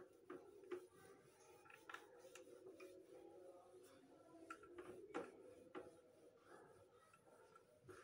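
Faint rubbing of a whiteboard eraser wiping marker off the board, in irregular strokes with small scraping ticks.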